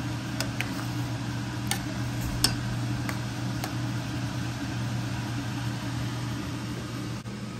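Metal spoon stirring mung bean soup in a stainless steel pot, clinking lightly against the pot a few times in the first half, over a steady low hum.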